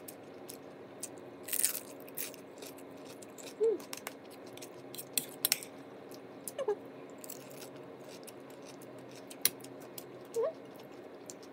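Close-up chewing of a spoonful of rice and wonton: scattered mouth clicks and wet smacks. Three short high mews from a cat come a few seconds apart.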